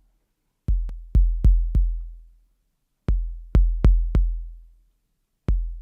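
Looping 808 drum-machine kick pattern, about four hits at a time with short gaps between groups. Each hit has a clicky attack and a long, low, decaying boom. It is shaped by a bass-amp tone stack and driven through a tube saturation stage to give it more weight.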